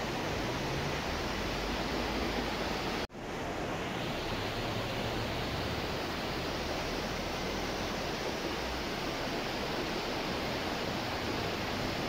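Shallow rocky river rushing over stones: a steady, even sound of running water, briefly cut off about three seconds in.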